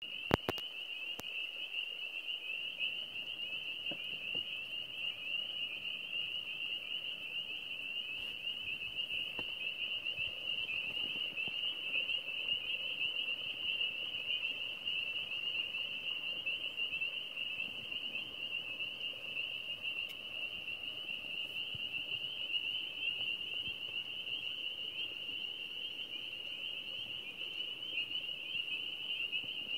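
Dense chorus of many small frogs calling at once, a continuous high-pitched din with no gaps. There is a brief knock right at the start.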